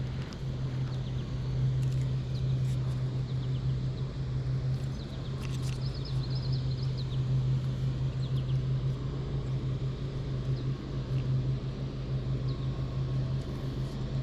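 Steady low machine hum, like a motor or pump running, with a few faint clicks and a brief high chirping about five to seven seconds in.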